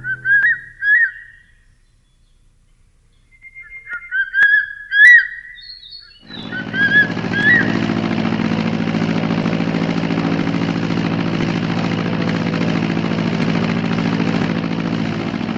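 Bird calls: short rising chirps in a few quick bunches, with a quiet gap between. About six seconds in, a steady aircraft engine drone starts and continues, with a last few chirps over its start.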